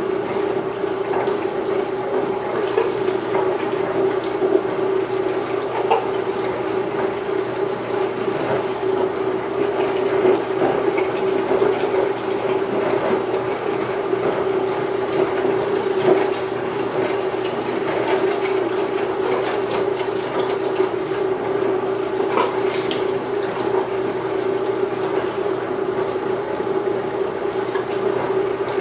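Belt-driven motorized No. 32 meat grinder running steadily, an even motor hum as it grinds cubes of pork, with a few faint clicks scattered through.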